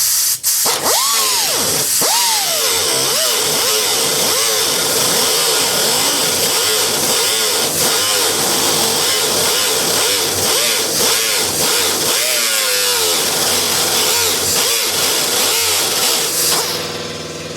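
Air-powered sander running against sheet steel over a heavy hiss of air, its whine dipping and recovering again and again as it is pressed on. It stops about a second before the end.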